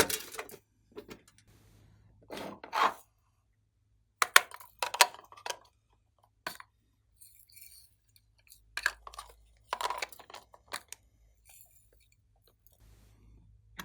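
Glossy slime being handled and mixed by hand: short sticky squishes and clicks in separate bunches a second or two apart.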